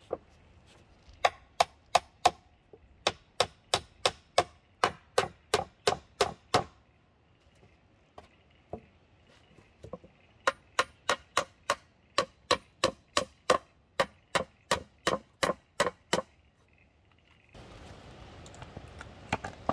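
Claw hammer driving nails into a sawn timber board: two runs of quick, even blows, about three a second, with a pause of a few seconds between them.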